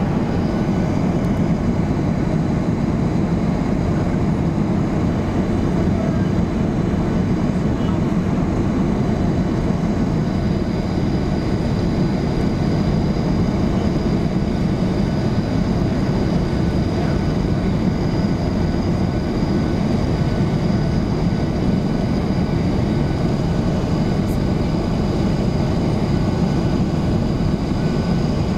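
Steady cabin noise inside a Boeing 737-800 in flight: the rush of airflow and the hum of its CFM56-7B engines, heaviest in the low range, with a faint high whine on top.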